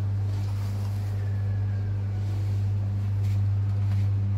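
A steady low hum, with faint rustling of snack packets being handled.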